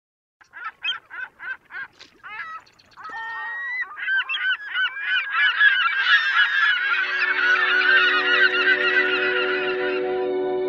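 Geese honking: a few single honks at first, then a whole flock honking together in a dense chorus. Music fades in underneath about two-thirds of the way through.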